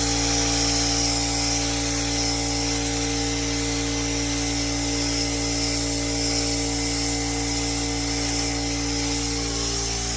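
Drywall texture sprayer running while spraying orange peel texture: a steady machine hum under a constant airy hiss.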